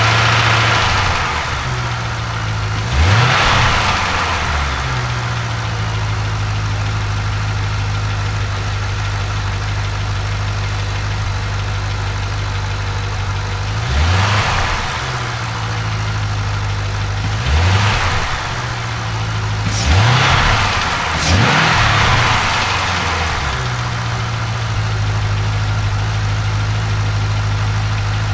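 GM LS7 7.0-litre V8 idling steadily with an engine tick, its throttle blipped five times: once a few seconds in and four times in the second half, the revs rising and falling straight back to idle each time.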